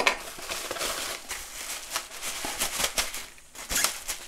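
Plastic bubble wrap crinkling and rustling in irregular crackles as hands handle and unwrap a wrapped foam fuselage.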